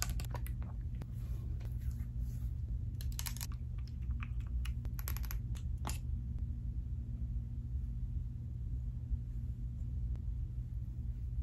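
Small clicks and taps from handling plastic skincare bottles, their caps and a dropper, in a few short clusters over the first six seconds, over a steady low hum.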